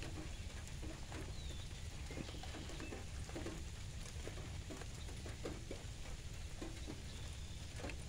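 Rain falling on two empty saucepans, one dark coated and one stainless steel, on a metal grate: irregular taps of single drops over a steady patter.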